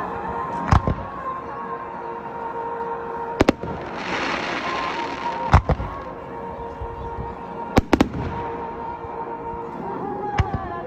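Fireworks going off: sharp single bangs every second or two, some in quick pairs. There is a hissing crackle for about a second near the middle.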